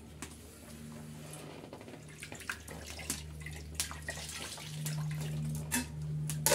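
A pot of rice bubbling at the boil, with sharp metallic clinks of a steel plate lid and utensils every second or so, the loudest near the end.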